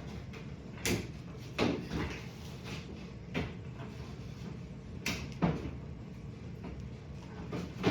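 O-scale model train track sections being handled and fitted together on a wooden table, making several sharp clacks and knocks at irregular intervals over a steady low hum.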